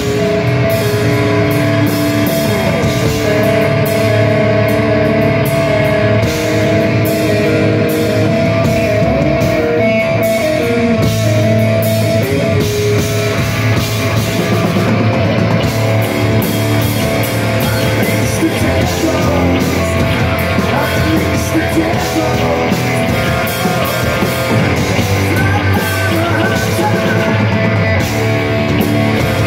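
Live hard rock band playing loudly: electric guitar, bass guitar and drum kit.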